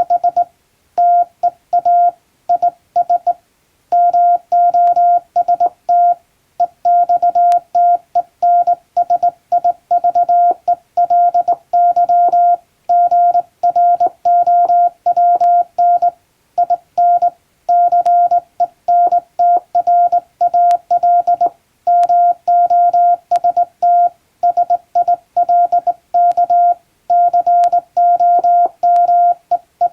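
Morse code sent by hand on a straight key: a steady beeping tone keyed on and off in dots and dashes, with short gaps between letters and longer ones between words. It spells out English-language telegram text.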